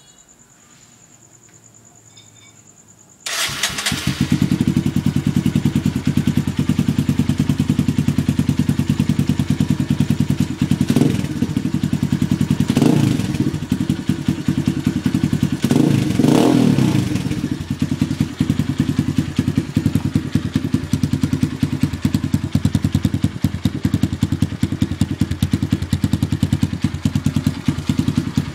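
Kawasaki KLX 150's single-cylinder four-stroke engine starting after a few quiet seconds, then idling with a fast, even pulse. The throttle is blipped briefly three times near the middle before the engine settles back to idle.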